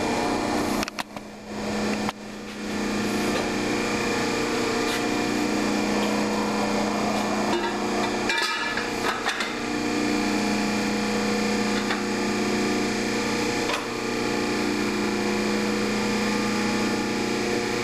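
Hydraulic tube bender's pump running with a steady hum while a steel exhaust tailpipe is bent, with a few knocks and a brief drop in the hum about a second in.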